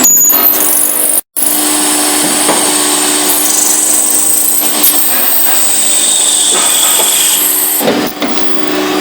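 An industrial metal-machining machine running under cutting load, with a steady hum and a high whine. The sound cuts out completely for a moment about a second in, then carries on.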